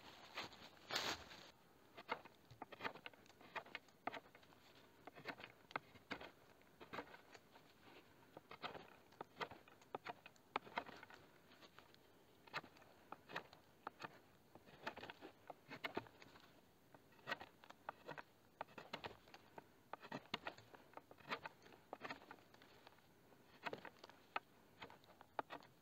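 Knife strokes cutting into a wooden pole, sharpening its end to a point: a long run of short, uneven cuts, a few each second.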